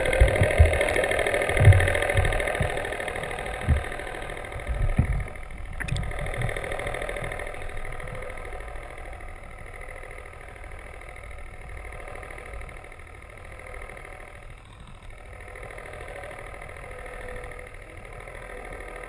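Steady mechanical hum of a boat engine heard through the water by an underwater camera, with dull knocks against the camera in the first few seconds; the hum slowly fades.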